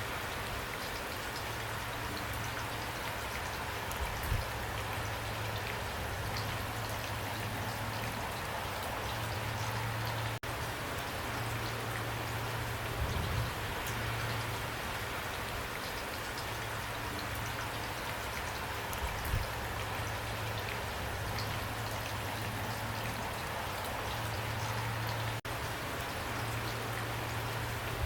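Heavy rain pouring steadily, an even hiss with scattered drop ticks and a few short low thumps. The sound cuts out for an instant twice.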